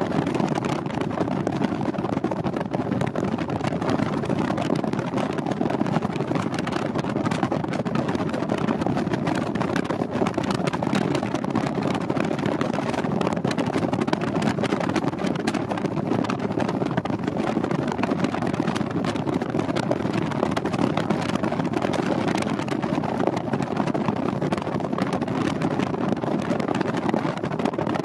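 Steady road and wind noise from a moving car, with no change in level throughout.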